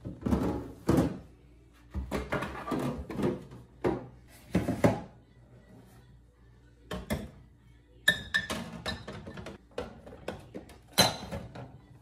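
Items being handled and set into an empty refrigerator: a string of clunks, knocks and clinks from bottles and the plastic crisper drawer and door shelf, in several bursts with short pauses between them.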